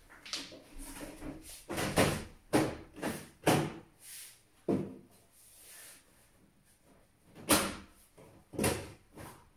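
Desktop PC case and its panels being handled and fitted on the floor: a series of irregular knocks and clunks.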